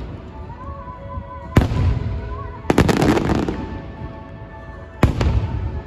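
Fireworks shells bursting: a sharp bang about a second and a half in, a quick cluster of crackling reports near three seconds, and another bang near five seconds, each followed by a long rumbling echo.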